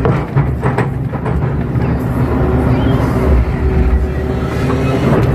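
Kato crawler excavator's diesel engine running steadily under hydraulic load, heard from the operator's cab, as the bucket digs wet mud and swings to dump it. A few knocks come in the first second.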